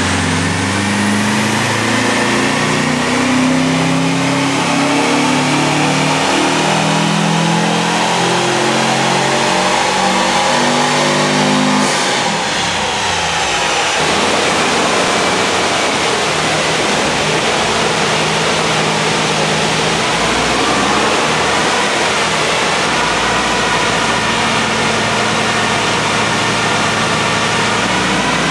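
Air-cooled Volkswagen flat-four engines run up under load on a chassis dynamometer. A Beetle's engine climbs steadily in pitch through a power run, then after a sudden break a Karmann Ghia's engine runs steadily and climbs again in the second half.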